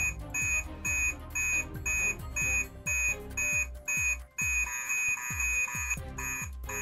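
Electronic background music with a steady beat: high beeping notes about twice a second over a low, falling thump on each beat.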